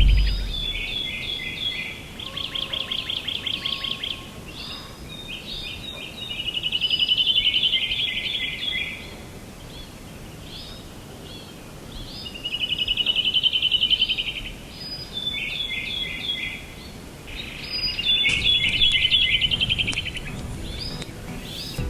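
Birdsong: bright trilled phrases, each one to two seconds long, repeating every few seconds over a faint steady hiss.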